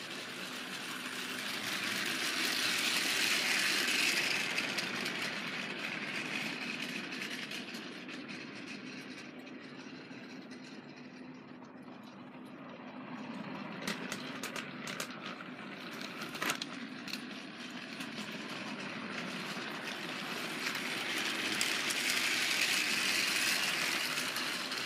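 Battery-powered Trackmaster toy train motors whirring, with the wheels rattling over plastic track. The sound swells as a train comes close, once early on and again near the end, and a few sharp clicks come in the middle.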